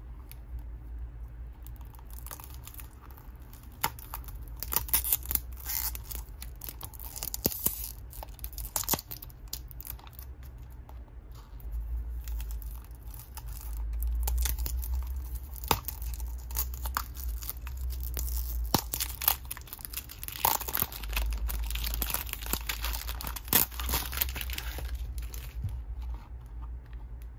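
Small cardboard toy-car box handled and opened by hand: the seal on the end flap torn and the paperboard flap pried open, with scattered clicks and scratchy rustling that come in two busier stretches.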